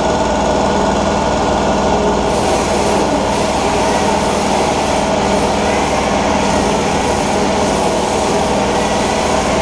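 Handheld electric rotary sander-polisher running steadily with its pad on a surfboard's resin surface: a constant motor whine, with a brighter hiss coming in about two seconds in.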